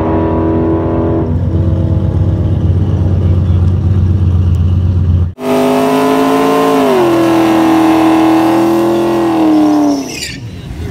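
Loud, steady car engine noise at a drag strip. About five seconds in there is an abrupt cut to a car doing a burnout: its engine is held at high revs while the rear tyres spin, with a brief dip in pitch, until it lets off about ten seconds in.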